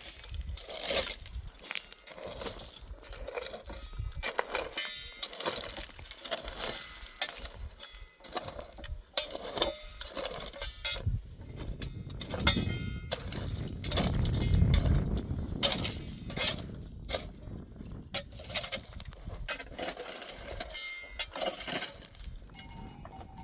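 Irregular knocks and clinks, with a louder low rumble about two-thirds of the way through.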